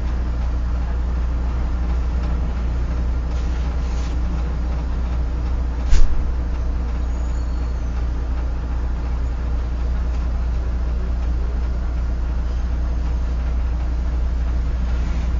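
Steady low engine drone and road noise heard inside a bus cabin in slow traffic, with a single sharp knock about six seconds in.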